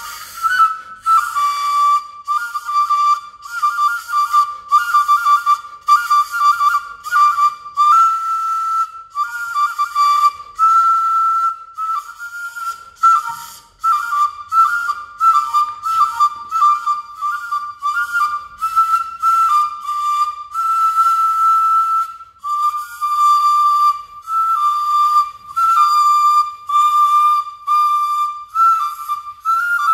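A small carved wooden flute played with cupped hands, giving a bright, whistle-like tune. It moves mostly between two close notes in short rhythmic phrases, with a few longer held notes.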